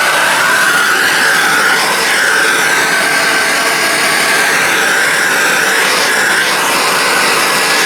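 Turbo torch burning with a loud, steady rushing hiss and a whistle that wavers in pitch.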